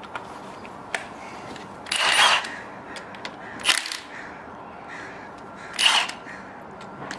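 Impact wrench run in four short bursts of about half a second each, trying to loosen the slide valve piston nut on a Hitachi screw compressor, with a few faint tool clicks between them.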